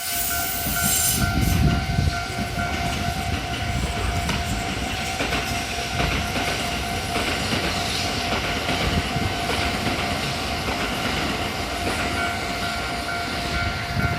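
Japanese level crossing warning bell ringing with a steady tone while a train runs past, its wheels clacking over the rail joints under a continuous rumble.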